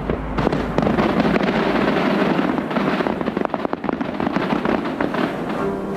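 Aerial fireworks going off in a dense run of crackles and pops, many sharp reports close together.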